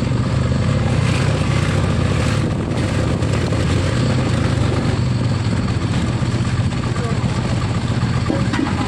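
A motor vehicle running steadily: an even, loud engine rumble with a constant low drone.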